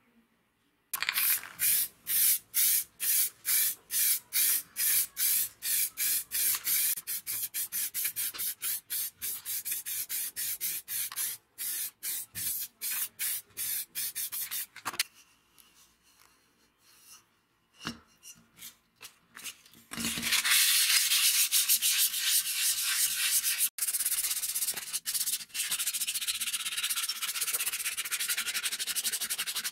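Sandpaper rubbed by hand over a round metal plate: first regular scratchy strokes that speed up, then after a short pause with a few clicks, fast steady scratching.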